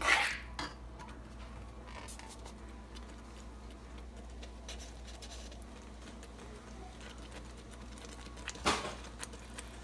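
Mostly low kitchen room tone with a faint steady hum. A metal spoon scrapes against the pot briefly at the start, and there is a short rustle near the end.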